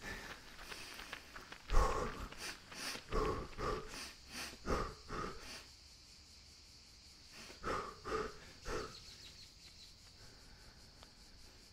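A runner's hard breathing: short, panting breaths about two a second that stop and then come again in a few more gasps. Behind them is a steady high drone of summer insects.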